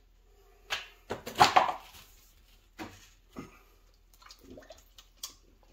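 Water splashing and sloshing in a flooded sump basin as something is lowered into it, with a few sharp knocks of handling; the loudest splashing comes about a second and a half in.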